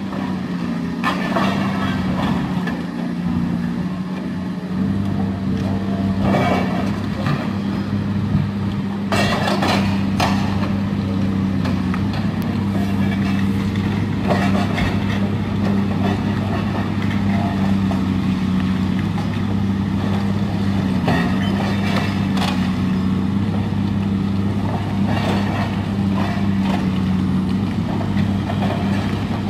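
Diesel engine of a long-reach demolition excavator running steadily, with scattered knocks and crashes as its crusher jaw breaks the concrete frame of a building and debris falls.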